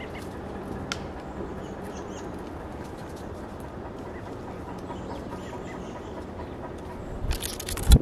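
Birds at a wooden platform feeder: faint scattered ticks over a steady low background rumble as a female northern cardinal picks at sunflower seed, then a loud flurry of wingbeats and thumps near the end as another bird lands on the feeder.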